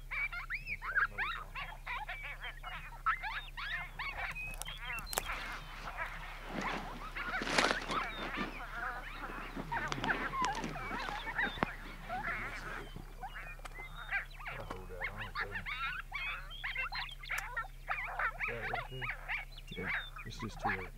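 Coyote pup whines and yips: many overlapping high calls that quickly rise and fall, busiest around the middle, played as denning sounds to draw in a coyote.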